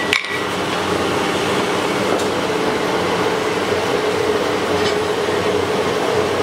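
Blacksmith's forge running with a steady rushing noise and a low hum while the workpiece heats in it; a short ringing metal clink right at the start.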